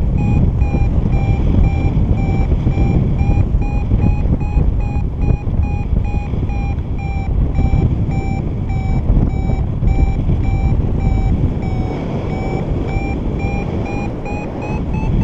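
Paragliding variometer beeping in quick, regular short tones, signalling a climb in a thermal, over a heavy rumble of wind on the microphone. The beep pitch dips slightly about three quarters of the way through and rises again near the end.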